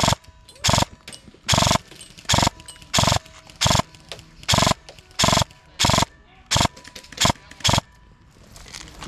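Running footsteps jolting a body-worn camera: a regular run of heavy thuds, about one every three-quarters of a second, that stops about eight seconds in.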